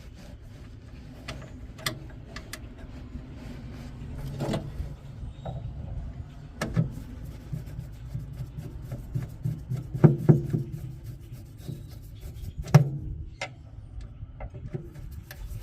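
Hand-tool and sheet-metal handling sounds while a pellet smoker is screwed back together: scattered clicks and knocks with rubbing in between, over a steady low rumble.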